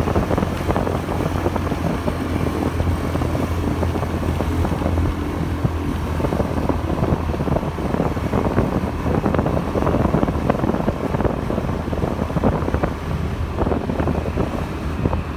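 Motorbike riding along a road: a steady low engine drone with wind buffeting the microphone.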